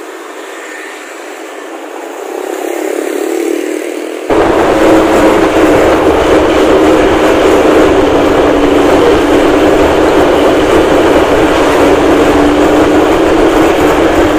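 Luragung bus's diesel engine and loud exhaust running close by. About four seconds in it suddenly gets much louder, with a deep rumble and a steady droning tone.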